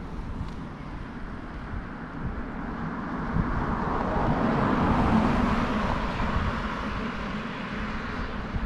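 A car passing on the road, its engine and tyre noise swelling to a peak about halfway through and then fading away, over a steady low rumble of wind on the microphone.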